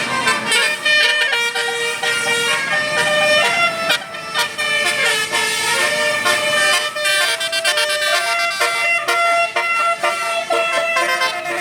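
A bus's telolet basuri musical horn playing a tune, a quick run of notes stepping up and down.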